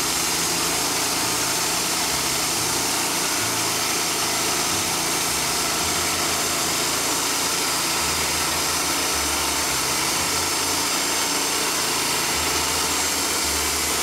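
Wood-Mizer LT40 band sawmill running under load, its engine and band blade sawing steadily through an oak cant.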